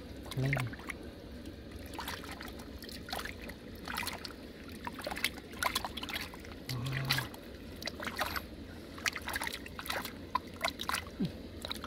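Hands working in shallow muddy water, scooping and rinsing mud off a freshwater clam: irregular small splashes and trickling water.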